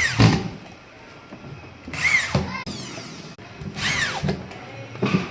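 Power drill run in short bursts, each whirring up in pitch and back down as the trigger is squeezed and released, typical of driving screws into wood. There are about four bursts, the first three roughly two seconds apart.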